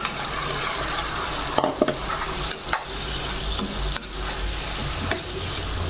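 Chunks of cut brinjal being tipped into a pot of simmering tomato-potato curry and stirred in, over a steady sizzle from the pot. A spatula clicks and knocks against the pot a few times.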